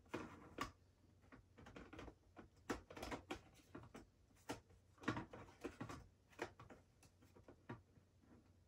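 Plastic parts of a Breville Blend Active personal blender being handled and pressed together: faint, irregular clicks and taps, a piece not yet seating properly.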